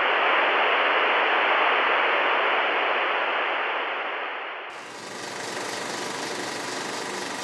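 A noisy rush that holds and then fades, cut off suddenly about two-thirds through by a motorcycle engine running steadily, with an even rapid firing rhythm.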